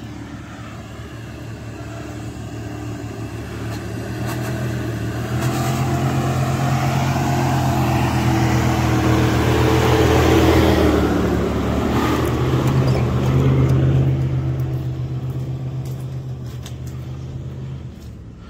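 A Jeep Grand Cherokee's engine running as the SUV climbs the dirt trail and drives close by. It grows louder as it approaches, is loudest as it passes about ten seconds in, and then fades away. Its tyres crunch on the stony track as it goes by.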